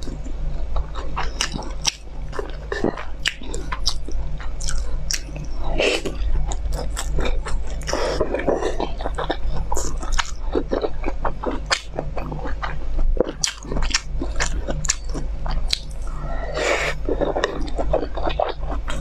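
Close-miked chewing and biting of pan-fried dumplings: wet mouth clicks and smacks in an irregular stream, over a steady low hum.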